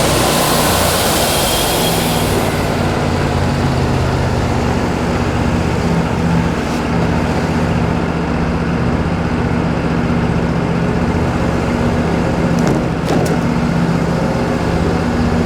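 Wood-Mizer LT40 sawmill's engine running steadily, with a hissing noise over it that stops about two and a half seconds in. A few short clicks near the end.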